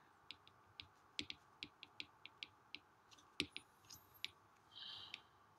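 Stylus tip tapping on a tablet's glass screen during handwriting: an irregular run of faint clicks, the loudest about three and a half seconds in, with a short soft scratch near the end.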